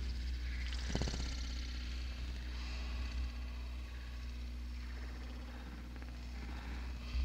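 Experimental noise music from a cassette: a steady low hum under shifting, grainy electronic textures, with a brief louder burst about a second in.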